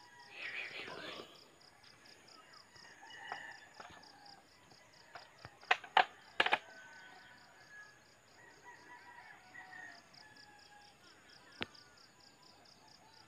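Insects chirping in a steady, even pulse, with scattered short bird calls. A brief rustle comes just after the start, a cluster of sharp clicks about six seconds in, and a single click near the end.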